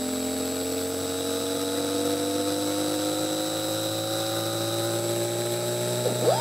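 iSound PopDrop mini Bluetooth speaker playing an electronic music track at full volume: a slowly rising synth drone of several layered tones, with fast swooping pitch sweeps coming in near the end.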